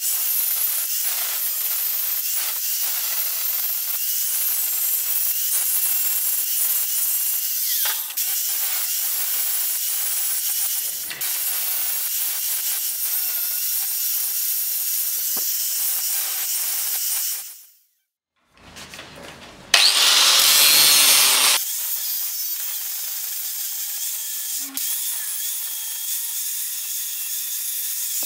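Angle grinder running with its disc grinding on the steel of an old hammer head held in a vise, a steady high-pitched whine and rasp. It breaks off briefly past the middle, comes back with a louder, harsher stretch of about two seconds, then settles into steady grinding again.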